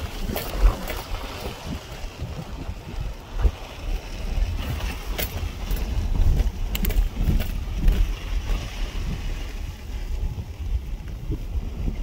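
Wind buffeting the microphone: an uneven low rumble that rises and falls in gusts, with a few sharp clicks.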